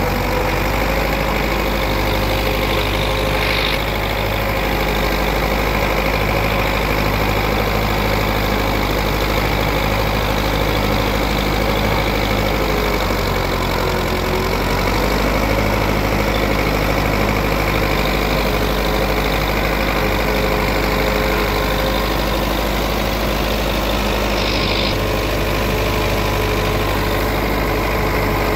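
Belarus MTZ 510 tractor's diesel engine running steadily under load while it drives a super seeder, its pitch sagging briefly about halfway through before recovering.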